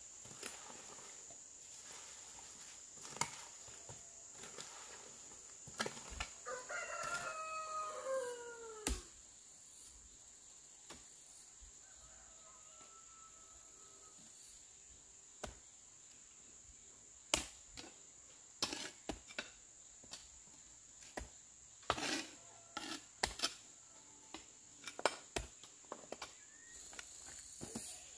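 A rooster crows once, a call of about two and a half seconds that falls in pitch at the end. Scattered sharp knocks follow in the second half, over a steady high thin whine.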